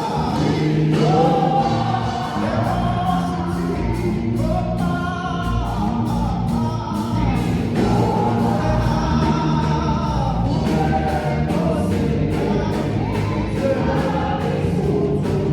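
Gospel music: a choir singing over a band with a steady beat and bass.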